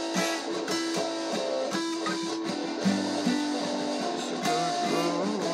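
Acoustic guitar being played, with held low notes under changing higher notes.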